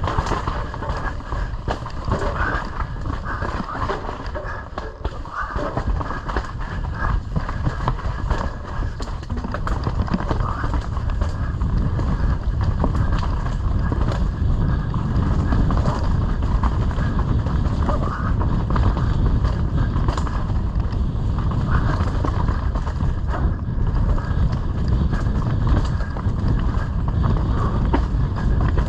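Mountain bike descending a dirt forest trail: tyres rolling over dirt, roots and rocks, with a steady run of small rattles and knocks from the bike over the bumps and wind rush on the microphone. It gets louder about twelve seconds in as the speed picks up.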